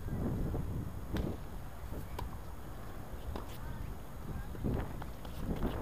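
Tennis balls being struck and bounced on a hard court: a handful of short sharp pops, scattered irregularly over a steady rumble of wind on the microphone.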